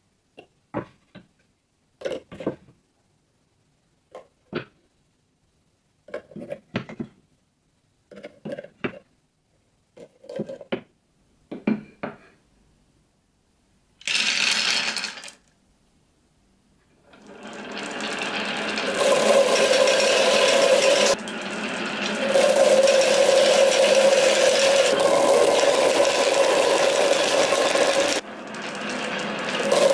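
Many marbles rolling down through corrugated plastic pop tubes and along carved wooden tracks: a loud, continuous rolling rattle with a steady hum that builds up after the marbles are released. Before that come short, separate clatters of the plastic tubes being set down on the wooden frame.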